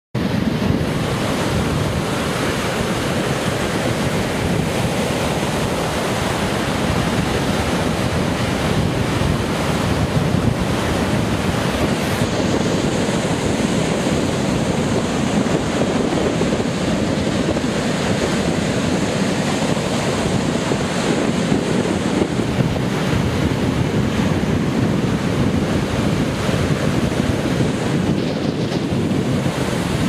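Rough storm surf breaking and washing up a sandy beach in a steady, loud rush, with wind noise on the microphone.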